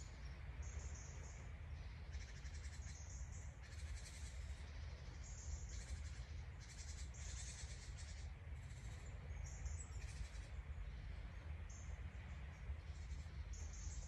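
Forest ambience: short high-pitched bird calls, about a dozen at irregular intervals, over a steady low rumble.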